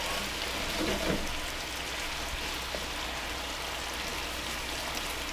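Steady crackling sizzle of food cooking on a stovetop.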